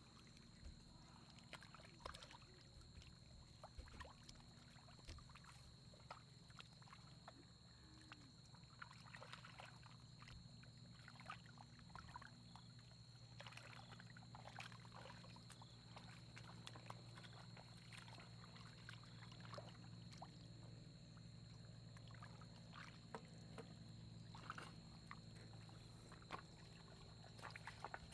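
Faint splashing and squelching of hands groping through shallow muddy water and mud for fish, many small irregular splashes, over a steady low hum and a thin constant high tone.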